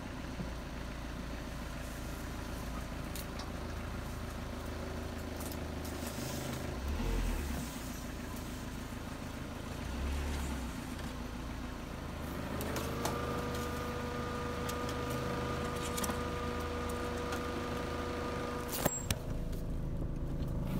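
Dodge Neon's four-cylinder engine running at low speed as the car crawls along deep ruts on a dirt trail. About two-thirds of the way through, a higher whine rises in over a second and then holds steady. A couple of sharp knocks come near the end.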